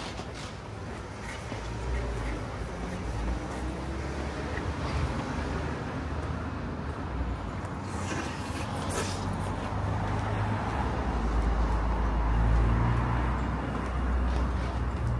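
Street ambience on a town high street: road traffic with a vehicle engine's low rumble that swells over the last few seconds, and a few brief sharp clicks about eight seconds in.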